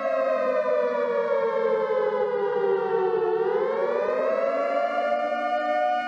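Federal Signal outdoor tornado warning siren sounding two close tones at once, its pitch gliding down over about three seconds, then climbing back and holding steady near the end.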